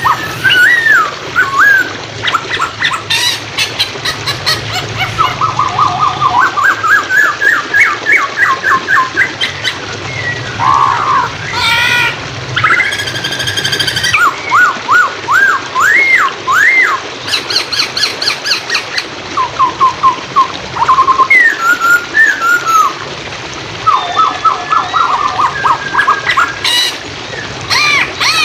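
Poksay Hongkong (masked laughingthrush) singing a loud, varied whistled song: quick rising and falling whistles, runs of fast repeated notes and a few sharp high chirps. A steady hiss of running water lies underneath.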